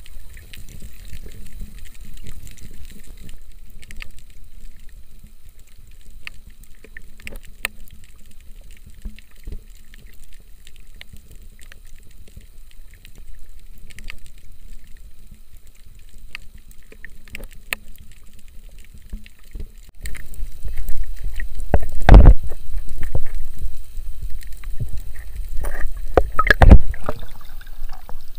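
Water heard through a camera held underwater: a low rumble with scattered faint clicks. About two-thirds of the way in the camera comes up at the surface and water sloshes and splashes loudly against it, with two sharp splashes near the end.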